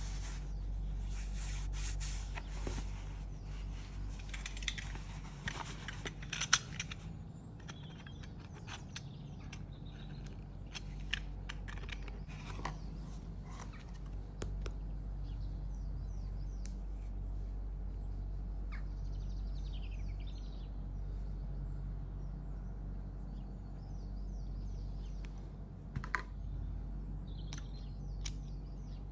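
Cardboard perfume boxes and a glass bottle handled with gloved hands: soft rustling with scattered light taps and clicks, most of them in the first quarter, over a steady low hum. Faint bird chirps come through now and then.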